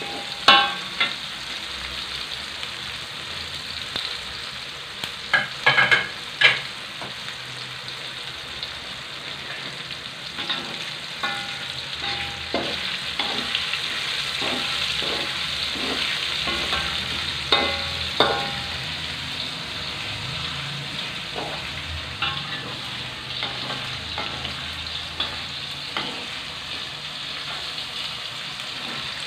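Chillies, shallots, garlic, tomato and belacan shrimp paste sizzling steadily as they fry in oil in a metal wok. A metal spatula scrapes and knocks against the wok as it is stirred, with a few louder knocks now and then.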